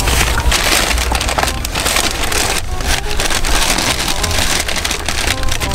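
McDonald's paper takeout bag rustling and crinkling as it is rummaged through, over the low steady hum of a running car.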